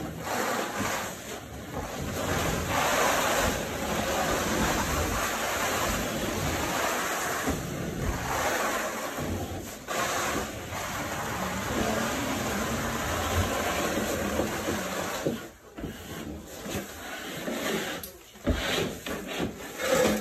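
Hand scraper scraping popcorn texture off a ceiling: a steady rasping hiss of overlapping strokes with loose texture falling, breaking into shorter separate strokes in the last few seconds.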